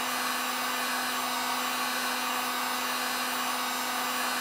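Electric heat gun running steadily, a constant rush of hot air over a low, even motor hum, blowing on an acrylic rod to soften it for bending.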